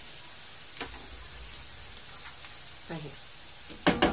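Chopped onions sizzling gently in a frying pan, a steady high hiss, with flour just added. Near the end a quick run of sharp knocks, a spoon tapped against the pan.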